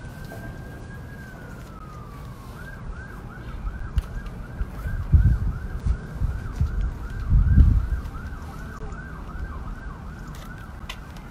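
Emergency vehicle siren: a slow wail that rises and falls, then switching about two and a half seconds in to a fast yelp of about three cycles a second that carries on until near the end. Low rumbles on the microphone twice, about five and seven and a half seconds in, are louder than the siren.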